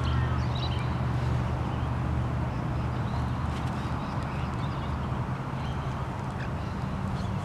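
Two Australian magpies fighting on the ground, giving a few short, faint harsh calls, clearest about half a second in, over a steady low rumble.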